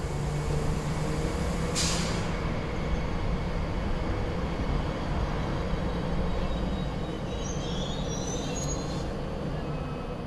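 Passenger train running slowly into the station and braking, with a steady low rumble. A short hiss comes about two seconds in, and thin, wavering brake squeals in the last few seconds as it comes almost to a stop.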